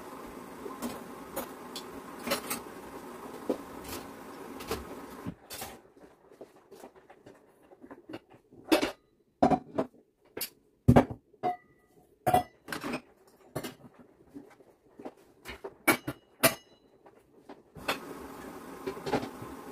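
Kitchen handling sounds: a run of sharp clinks and knocks of dishes and utensils, some ringing briefly. A steady low hum sits under the first few seconds, drops away about five seconds in, and returns near the end.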